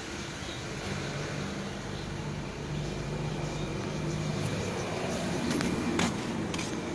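An engine running steadily with a low hum, growing a little louder, with a few sharp clicks near the end.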